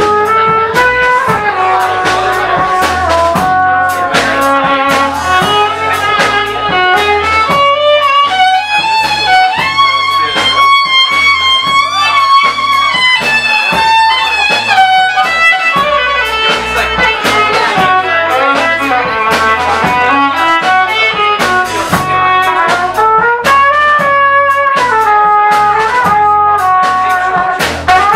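Live band playing with a steady beat: trumpet carrying held melody notes over violin, with bass and drums underneath.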